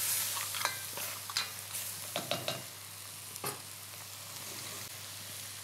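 Crab shells, vegetables and spices frying with a steady sizzle in an enamelled cast-iron casserole, the base of a crab bisque. A spoon stirs and knocks against the pot several times in the first three and a half seconds, then only the sizzle goes on.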